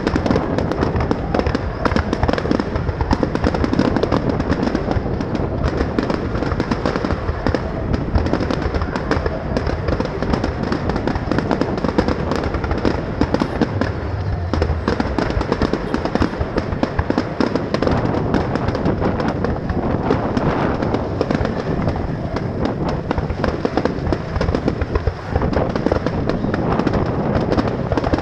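Fireworks display: a dense, continuous barrage of bangs and crackles.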